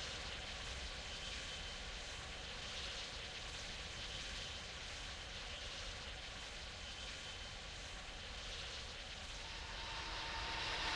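Jet airliner engines running with a steady rushing noise and a thin high whine, growing a little louder near the end.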